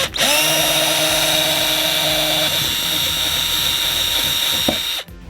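Cordless drill spinning up, then running steadily at speed for about five seconds as it bores out a hole in the plastic door panel, stopping abruptly near the end.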